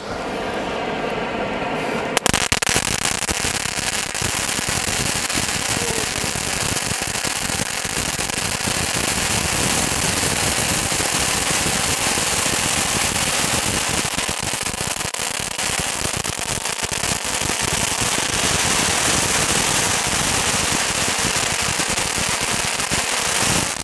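Handheld tube firework spraying sparks: a hissing rush that breaks, about two seconds in, into dense rapid crackling, which runs on steadily and stops abruptly near the end.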